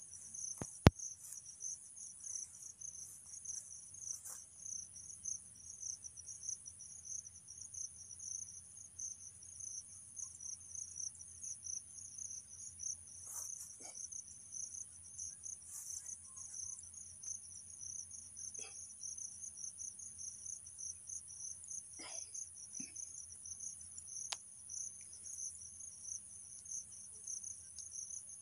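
Steady high-pitched insect chorus, a fast pulsing trill that never lets up, with one sharp click about a second in and a few faint knocks later.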